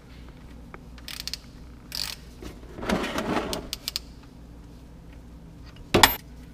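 Socket ratchet clicking in short runs as it backs out the engine's oil drain plug after it has been broken loose, with one sharp metallic knock near the end.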